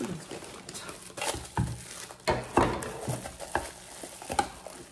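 Plastic packaging rustling and crinkling as it is handled, with irregular crackles and sharp clicks.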